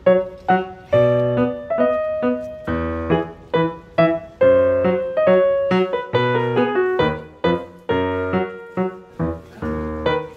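Background piano music: chords and single notes struck one after another, each fading after it is struck.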